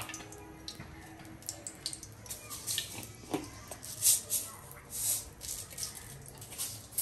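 Mustard oil heating in a kadai, crackling and spitting in irregular pops, with louder hissing spurts about four and five seconds in.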